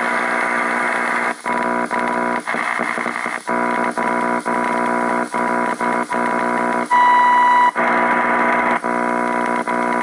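AM radio receiver playing a harsh, steady buzzing drone of many layered tones from an odd station or interference. The drone is broken by brief dropouts every half second to a second, and a louder pure beep sounds for under a second about seven seconds in.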